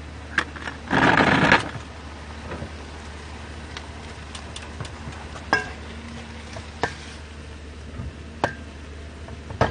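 Metal cooking utensils clinking against aluminium pots while stir-frying: a few sharp separate clinks spread across several seconds and a louder scraping rush about a second in, over a steady low hum.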